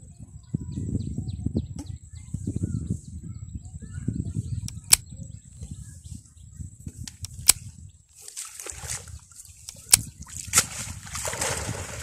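Cast net being hauled in by hand from a river, then lifted out of the water: from about two-thirds of the way through, water sloshes and streams off the wet mesh. Before that there is a low rumble, and three sharp clicks come a couple of seconds apart.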